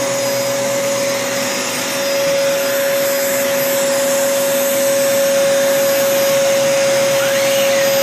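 Vacuum cleaner running steadily, a rush of air with a steady whine, its hose nozzle sucking at a girl's long hair.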